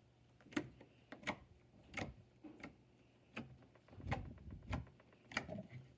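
Bead-filled crunch slime being poked, giving a string of short, faint clicks and pops, about one every half second to a second at irregular intervals.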